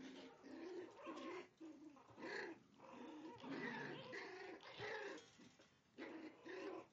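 Poodle whining and yipping in a string of about ten short cries, each bending up and down in pitch, with brief gaps between them.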